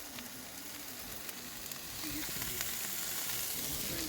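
Food sizzling in a frying pan, the sizzle growing louder about two seconds in.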